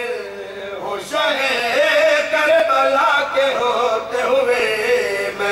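A man's voice singing a devotional verse of a Shia majlis recitation in long held, gliding notes. It grows louder about a second in.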